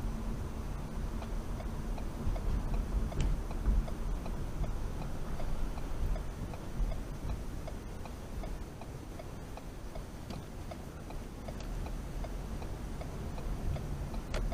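Car's turn-signal indicator clicking in a steady, evenly spaced ticking as the car turns at a stop sign, over the low rumble of the car's engine and tyres heard from the cabin.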